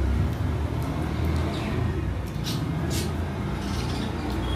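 Steady low background rumble, with a few short sharp clicks about one and a half, two and a half and three seconds in.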